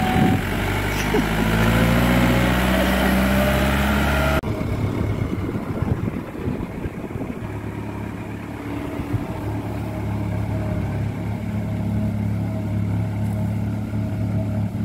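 Force Balwan 500 tractor's diesel engine running as it hauls a loaded coconut trailer, its pitch creeping up slowly. About four seconds in, the sound changes abruptly to a more distant, rougher engine drone with a rumbling, bumpy background.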